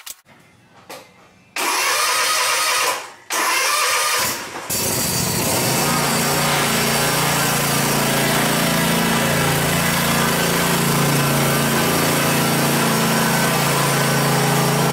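Zero-turn riding mower's engine being started: two short bursts of cranking, then it catches about five seconds in and runs steadily.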